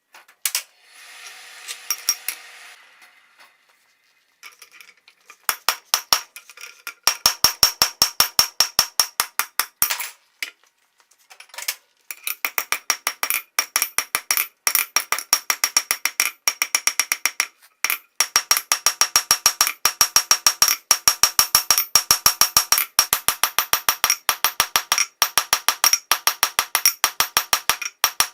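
Hammer blows on hot coil-spring steel at the anvil: rapid, even strikes at about four a second, each with a bright metallic ring, in long runs with a couple of short pauses. A brief hiss comes before the hammering begins.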